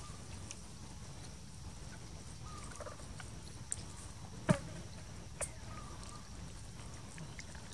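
Faint short chirping animal calls, with a sharp click about halfway through and a few lighter ticks, over a steady low rumble.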